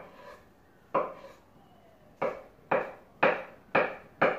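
Kitchen knife cutting boiled potato on a wooden cutting board. Each cut ends in a sharp knock of the blade on the board, about seven in all. They start slow and come about two a second in the second half.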